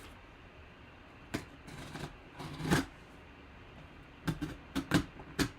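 Handling sounds of cardboard and plastic packaging: a few separate clicks and rustles, then a quick run of four or five clicks near the end.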